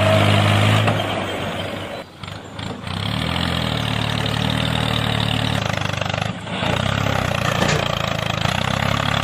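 Truck-like engine running steadily at a low idle. It dies down briefly about two seconds in and again around six seconds, then picks up again.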